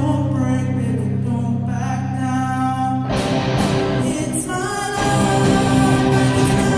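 Live rock band playing with electric guitars, bass guitar, drum kit and a lead singer. Steady held notes give way about three seconds in to cymbal crashes, and the full band plays on with singing.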